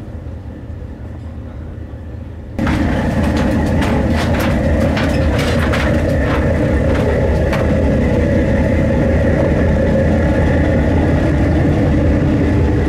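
A boat engine idling with a steady low rumble, much louder from about two and a half seconds in. A string of sharp knocks, like footsteps on wooden dock planks, comes over it in the first few seconds after the jump.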